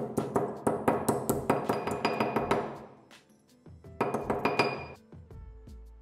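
Hammer blows on a small metal piece laid on a steel axe head used as an anvil: a fast run of ringing metallic clinks lasting about two and a half seconds, then a second, shorter run about four seconds in.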